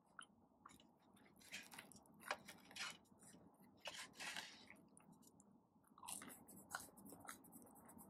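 Close-miked chewing of food, with irregular wet mouth clicks and smacks scattered through it.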